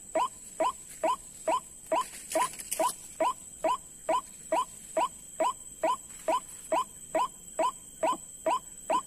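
White-breasted waterhen calling: one short falling note repeated evenly, about two a second, without a break. A thin steady high tone runs behind it.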